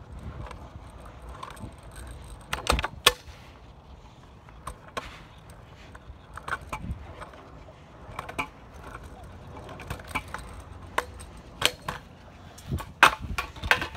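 Kick scooter wheels rolling over concrete with a low rumble while the scooter rattles, broken by several sharp clacks and knocks of the scooter against the pavement.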